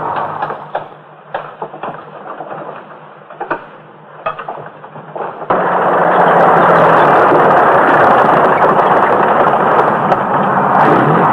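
Scattered sharp clicks and knocks over a quieter background. About five and a half seconds in, a loud steady rumbling noise cuts in abruptly and holds.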